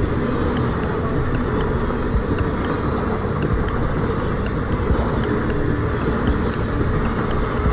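Steady noise of a moving train, used as background, with a stopwatch timer ticking regularly over it.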